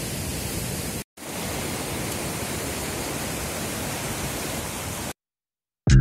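Steady rush of river water tumbling over rocks in rapids. It drops out for a moment about a second in and cuts off abruptly about a second before the end.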